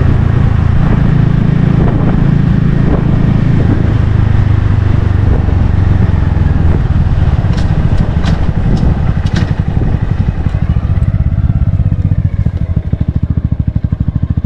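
Honda Grom 125's single-cylinder engine running steadily through its exhaust, loud and deep. A few sharp clicks come midway, and near the end the individual exhaust pulses become distinct.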